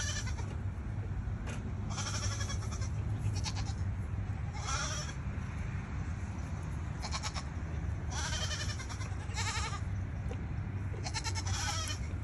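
Goats bleating repeatedly, short wavering calls coming every second or two. A steady low rumble runs underneath.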